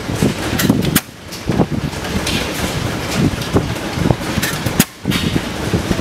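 Vintage stationary hay baler being started: its drive and machinery run with rapid, irregular knocks and clatter, dropping out briefly about a second in and again near the end.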